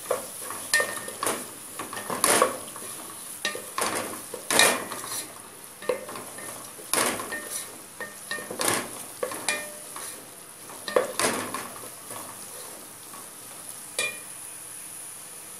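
Wooden spatula stirring a tomato, onion and garlic sauté in a metal pot, scraping and knocking irregularly against the pot, over a steady frying sizzle.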